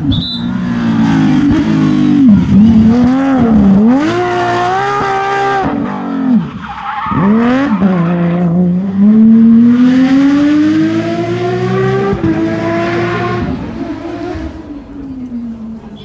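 Porsche 997 GT3 rally car's flat-six engine revving hard through the gears at full throttle, its pitch climbing and dropping with each shift. It falls away briefly about six and a half seconds in, then makes one long rising pull from about eight to twelve seconds in before dropping off.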